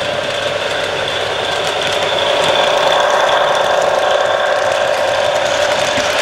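Model diesel locomotive sound from a Proto 2000 E7A's QSI sound decoder, a steady engine sound through the model's small speaker, mixed with the mechanical rattle of the model train running on the track. It grows a little louder about two seconds in as the train passes close by.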